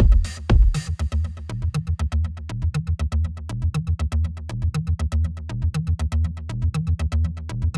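Electronic background music: a fast, even synthesizer pulse over a pulsing bass line, with heavy kick-drum beats in the first second.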